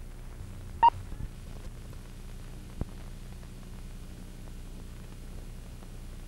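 Steady low hum and hiss of an old optical film soundtrack. About a second in there is one short beep near 1 kHz, the sync pop of the countdown leader, and a single sharp click comes near three seconds.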